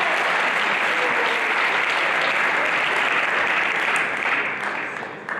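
Spectators applauding, steady and loud, then dying away over the last second or so.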